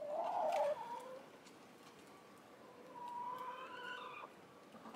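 Hens calling while they feed: a short wavering call at the start and a longer drawn-out call about three seconds in.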